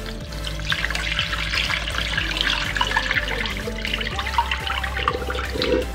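Water poured in a steady stream from a cooking pan onto a whole raw chicken in a large bowl, splashing and filling the bowl. The liquid is the spice-boiled water, cooled for use as a soaking brine.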